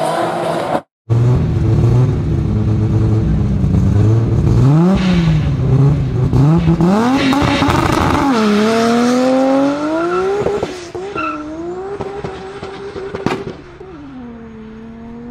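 Tyres squealing in a drift for the first second. Then a heavily tuned Mk4 Toyota Supra's engine revs hard and accelerates away through the gears, its pitch climbing and dropping back at each shift and growing fainter as it pulls away. There is one sharp crack about two seconds before the end.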